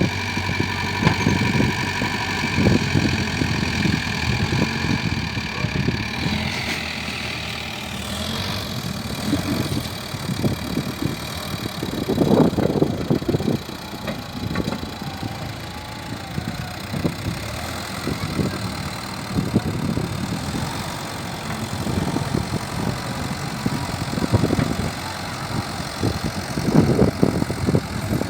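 Tata truck engine running while the repaired transmission is tested, with a steady whine for the first six seconds or so that changes about seven seconds in, and uneven surges in level.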